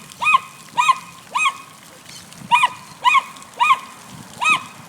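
A dog giving high-pitched, excited yipping barks, seven in a steady rhythm of about two a second, with a pause of about a second partway through.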